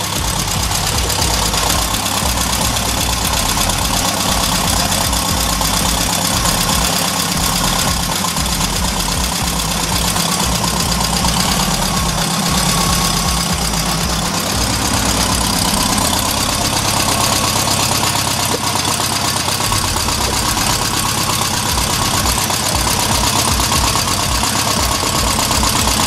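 Air-cooled flat-four engine of a 1972 VW Super Beetle idling steadily on its own after sitting unused for a long time.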